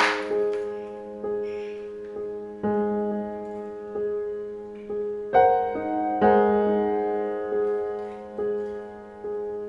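Slow solo piano background music, single notes and chords struck about once a second and left to ring, with a short sharp tap right at the start.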